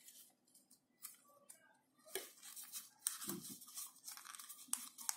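Thin origami paper rustling and crinkling in short, irregular scrapes as it is creased and flattened by hand.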